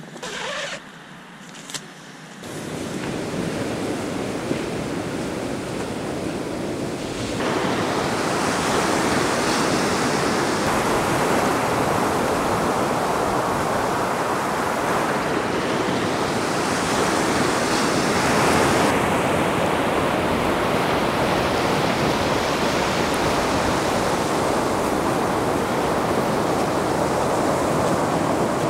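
A tent door zipper pulled open briefly, then a steady wash of surf breaking on a sandy beach, louder from about seven seconds in.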